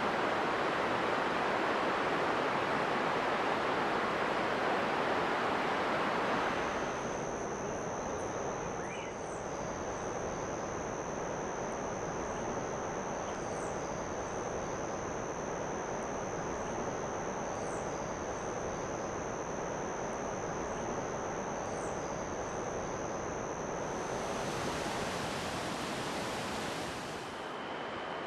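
Steady rushing water. From about seven seconds in, a steady high-pitched insect-like whine joins it, with a few faint short calls over it. The sound changes abruptly a few times, as at edits.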